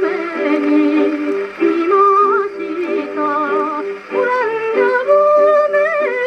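A 1949 78 rpm record played on a Victor VV 2-55 portable Victrola through its acoustic soundbox and steel needle: a woman singing with a wavering vibrato over instrumental accompaniment. The sound is thin, with no deep bass and no high treble.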